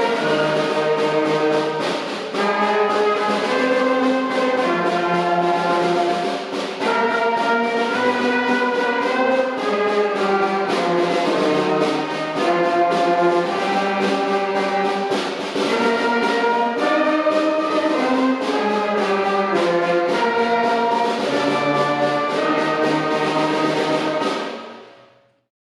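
Slow orchestral music led by brass, sustained chords changing every second or two, fading out near the end.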